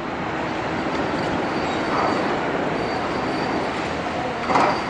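Heavy construction machinery working, a steady dense rumble with a faint high squeal coming and going. About four and a half seconds in, a short louder burst stands out.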